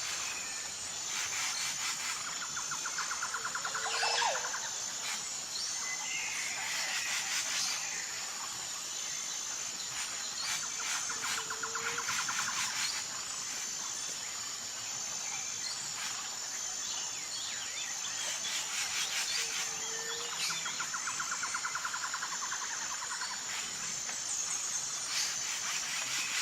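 Tropical-forest ambience: a constant high insect buzz under bird calls, a rapid rattling trill followed by a short low whistle, the phrase coming back about every seven to eight seconds.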